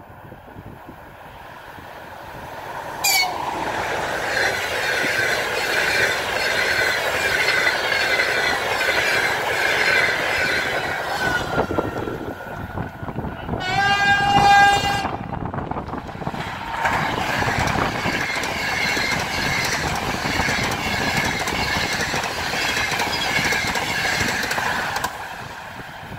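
An EP20 electric locomotive hauling the Nevsky Express passenger train rushes past at speed, with steady wheel and air noise. About halfway through, a train horn sounds once for about a second and a half. Then a Siemens Velaro "Sapsan" high-speed electric train rushes past.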